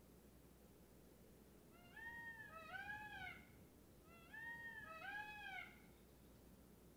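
A cat meowing faintly: four meows in two pairs, the pairs about two seconds apart.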